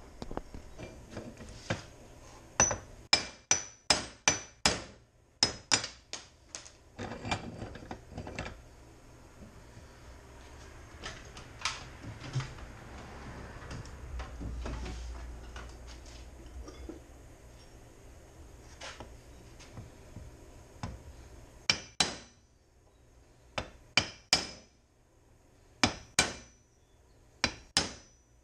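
Hammer blows on steel, driving the old wheel studs out of a zero-turn mower's wheel hub: sharp metallic strikes with a ringing tone, in runs of several quick blows. There is a quieter spell with no strikes in the middle.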